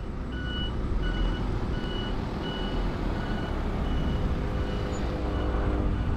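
Electronic beeper sounding a short high two-tone beep over and over, about every two-thirds of a second, over a steady low rumble. The lower of the two tones drops out about halfway through.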